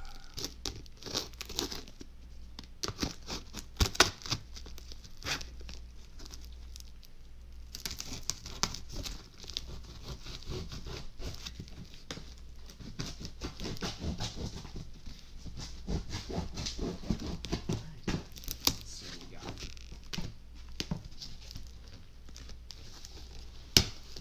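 Packing tape on a cardboard shipping box being slit with a knife and peeled off, with the cardboard and the paperwork on top scraping and crinkling. Irregular scrapes and crackles, with a sharp knock about four seconds in and another near the end.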